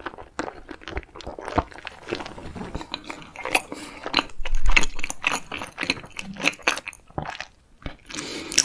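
Close-miked eating: food being bitten and chewed, with irregular crunches and wet mouth clicks.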